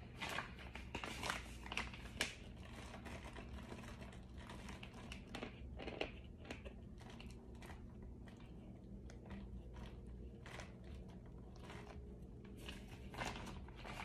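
A person biting and chewing something hard and crunchy close to the microphone: sharp crunches, loudest in the first few seconds and again near the end, with softer chewing between.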